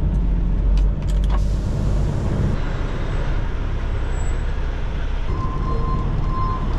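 Semi-truck engine running with a steady low rumble, a short air hiss about a second and a half in, then a backup alarm beeping steadily from about five seconds in as the truck starts reversing.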